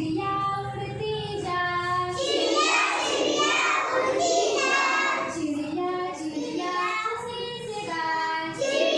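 Children singing a Hindi rhyme in a sing-song chant, with notes held at the end of short phrases.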